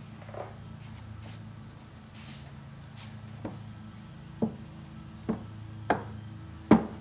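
Shop rag rubbing over a metal portable band saw wheel as it is wiped clean, with a handful of sharp handling knocks in the second half, the loudest near the end, over a steady low hum.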